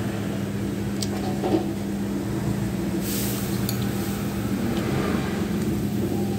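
A steady low mechanical hum, with a few light clinks of a metal spoon and fork against the plate.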